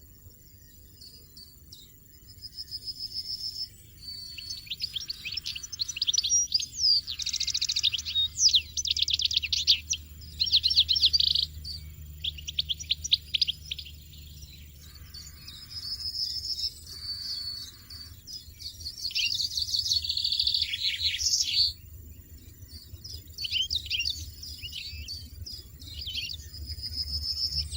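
European goldfinches twittering and trilling in quick high phrases with short pauses between them, over a faint low rumble.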